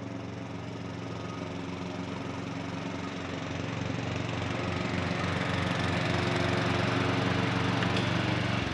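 Stiga Tornado 398 ride-on lawn tractor with its ST 450 petrol engine running as it drives up, growing louder as it comes closer. Near the end a whine falls in pitch as the machine slows.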